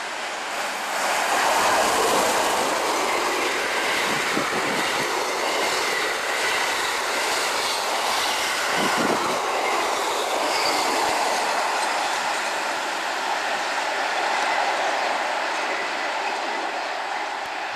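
Electric locomotive and red passenger coaches passing close by through a station, the wheels running and clattering over the rails. A faint high wheel squeal is heard in the middle of the pass.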